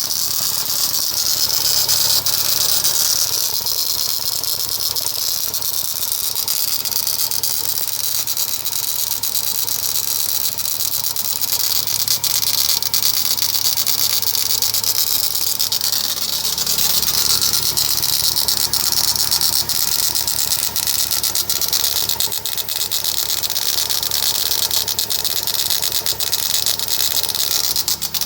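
Volkswagen EA111 engine idling with a fast, steady rattle from the crankshaft pulley, a noise the owner takes for a fault in that pulley.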